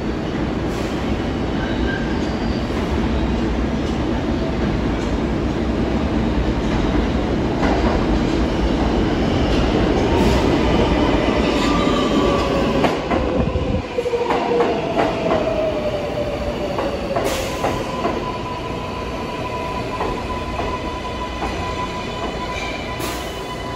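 New York City subway train of the R142 family running through the station and slowing: a loud rumble with clacks over the rail joints, then a motor whine falling in pitch as it brakes, and a steady high-pitched tone through the second half.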